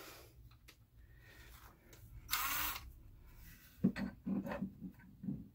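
Ryobi cordless drill driving a screw into a shelf in several short trigger bursts, beginning about four seconds in. A brief rustle a little over two seconds in comes before it.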